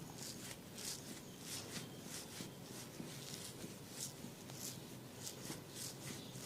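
Massage strokes: hands rubbing over hair and skin in quick, uneven swipes, about two to three a second.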